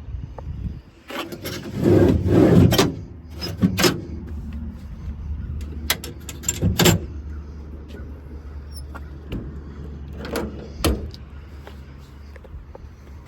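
Clunks, clicks and rattling of a service truck's body doors and latches being handled, with a loud rattling stretch early on and several sharp knocks later, over a steady low hum.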